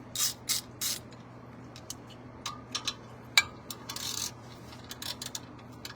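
Hands handling brake caliper hardware and tools: scattered light metal clicks and taps with brief rustling scrapes, three of them close together near the start and one sharp click about halfway through. A faint steady low hum runs underneath.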